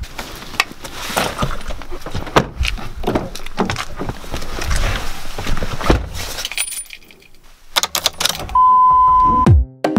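A bunch of car keys jangling and clicking as a car door is opened and a key is slid into the ignition. Near the end there is a loud, steady beep lasting about a second, then electronic music with a heavy kick drum starts.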